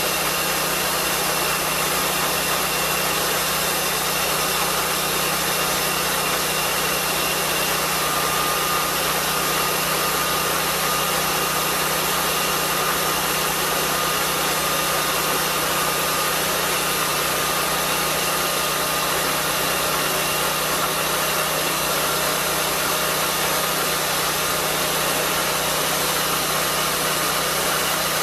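Lucas swingblade sawmill's engine running steadily at an even pitch.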